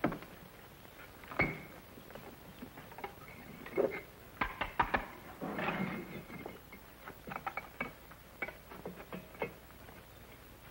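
Bricklaying: a steel trowel clinking and scraping on mortar and brick while bricks are set down into place. The sound comes as irregular taps, clicks and short scrapes.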